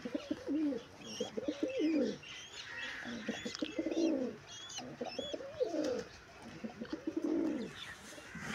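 Domestic pigeons cooing: about five rolling coos in a row, each dropping in pitch at the end, with faint high chirps over the first few seconds.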